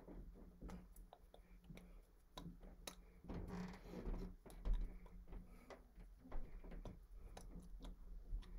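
Faint scattered taps, brushes and rustles of hands meeting each other and a T-shirt while a person signs in sign language, over a low steady electrical hum; one louder knock a little before the halfway point.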